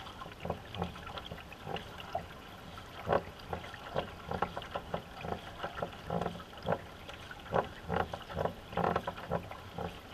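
A two-person racing canoe under way, with irregular paddle strokes splashing in the water and knocking against the hull several times a second.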